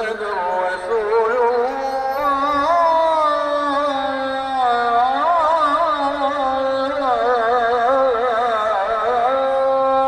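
A single voice chanting an Islamic supplication (dua) in a slow, ornamented melody, with long notes that waver and turn in pitch.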